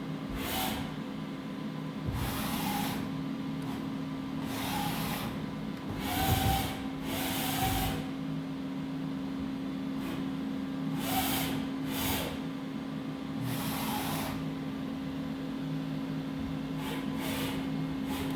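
Doosan Puma 4100LB CNC turning center running: a steady hum, broken every second or few by short hissing bursts.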